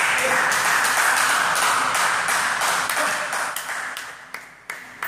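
Spectators applauding the end of a table tennis rally, starting suddenly and dying away after about four seconds. A couple of sharp taps follow near the end.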